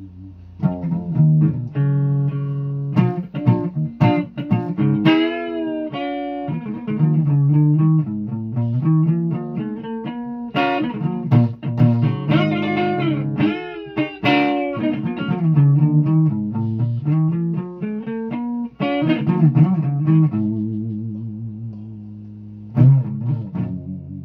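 A guitar played solo, a melody of plucked single notes and chords, with several notes bent and wavering in pitch.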